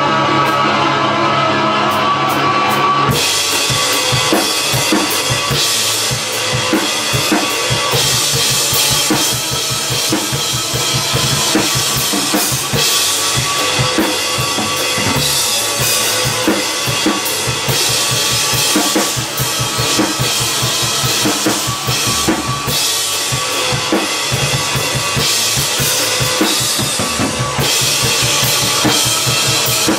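Acoustic drum kit played over a looped electric guitar figure. The guitar loop sounds alone for about the first three seconds, then the drums come in with bass drum, snare and cymbals in a steady groove.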